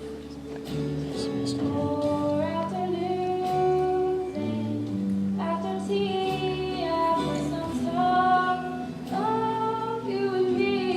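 A female voice singing a musical-theatre number over held accompaniment chords; the melody comes in about two seconds in.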